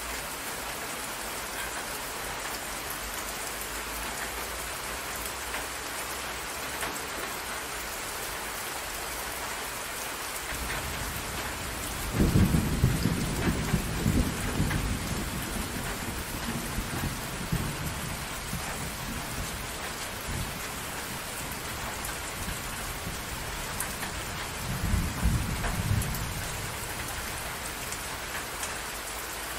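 Steady rain falling onto a water surface, with thunder rumbling twice: a long roll about twelve seconds in that dies away over several seconds, and a shorter one near the end.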